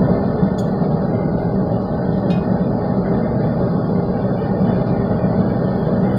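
A steady low roar that holds constant, with two faint light clicks, one about half a second in and one a little past two seconds.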